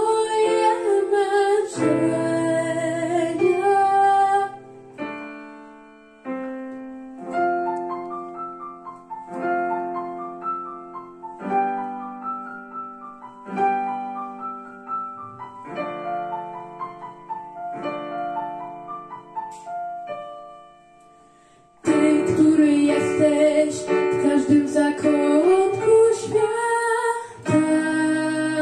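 A boy's unbroken voice singing with a Yamaha digital piano. A few seconds in the voice stops and the piano plays an instrumental passage of rising broken chords alone, more quietly; after about twenty seconds the singing comes back in loudly over the piano.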